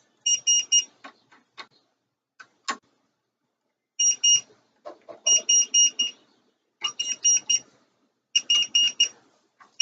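Electronic voltage tester beeping in quick bursts of four or five short high beeps, a burst every second or so with a gap near the start, and a few faint clicks in between.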